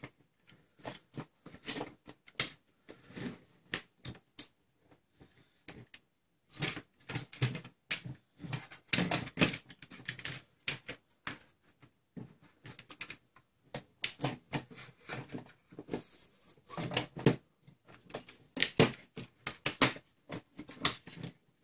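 Irregular clicks, taps and light knocks of plastic and metal blaster parts being handled and fitted together, with a short pause about a third of the way in.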